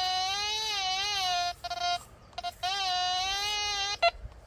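Quest Q30+ metal detector sounding its target tone over a strong signal: two long, slightly wavering tones about two seconds each, with a few short beeps between and after them as the coil passes back and forth over the target.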